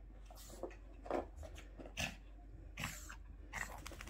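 A small dog rubbing itself dry against a fleece blanket and nosing into it: irregular rustling and scuffing of fabric, with a few louder scuffs or sniffs about a second apart.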